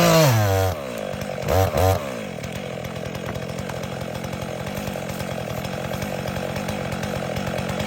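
Stihl MS400 two-stroke chainsaw running steadily at an even speed.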